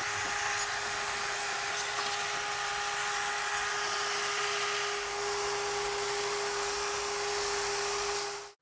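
Cordless drill spinning a brass wire brush against welded steel horseshoes, scrubbing the weld seams clean: a steady motor whine under a constant scratchy hiss of wire on metal. It stops suddenly near the end.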